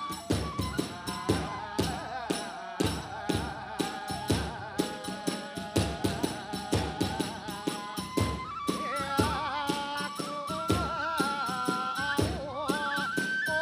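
Kagura hayashi ensemble playing a fast, driving beat of drum and small hand cymbals. A bamboo flute over it holds wavering notes that step higher in the second half.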